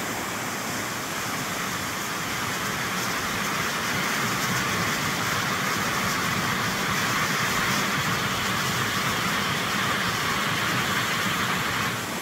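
Small forest waterfall and its rocky cascade rushing steadily, a little louder from about three seconds in.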